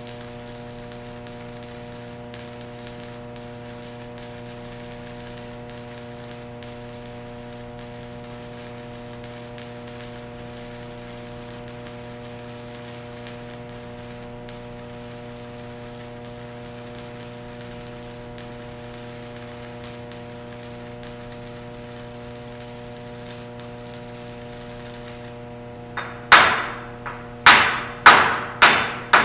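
Small inverter stick welder running a 6013 rod: a steady electrical hum with a faint crackle. About 26 seconds in, a chipping hammer strikes the weld bead about five times, sharp metallic knocks that ring briefly, knocking off the slag.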